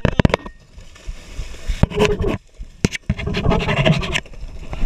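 Hooked bluefin tuna thrashing and splashing at the surface as it is gaffed alongside the boat, with sharp knocks and scraping of the gaff and rod against the boat.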